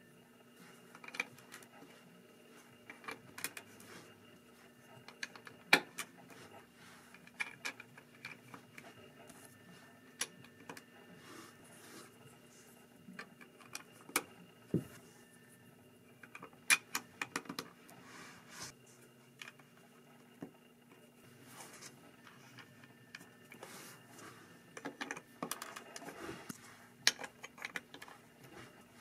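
Lego bricks being handled and pressed together: scattered sharp plastic clicks and small clatters at irregular intervals, over a faint steady hum.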